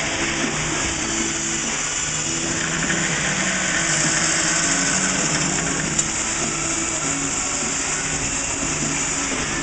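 Power saw cutting DOM steel tubing, running steadily through the cut, with a single sharp tick about six seconds in.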